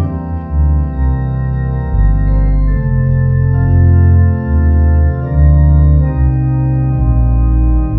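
Organ music: held chords that change every second or so over deep bass notes.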